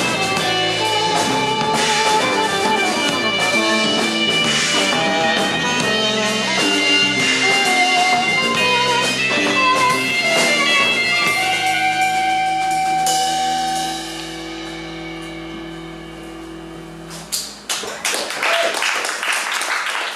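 Live psychedelic rock band, with electric guitars, saxophone, bass and drum kit, playing the end of a song; the full band drops away about twelve seconds in to a sustained held chord that rings on more quietly. Near the end the chord stops and the audience claps and cheers.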